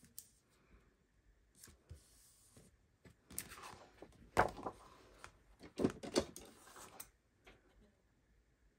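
A folded cardstock card being lifted, flexed and turned over, the stiff paper rustling and knocking against the tabletop, with three sharper knocks in the middle. A few light taps come before it.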